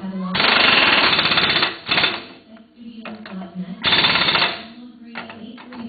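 Impact wrench hammering in bursts as it runs wheel nuts onto the dolly's steering axle: a long burst of about a second, then a shorter one about four seconds in. A low steady hum runs between the bursts.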